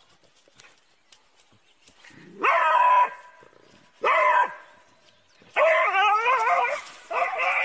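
A dog barking and howling in high, wavering calls, in four bouts starting about two and a half seconds in, the last two long and drawn out.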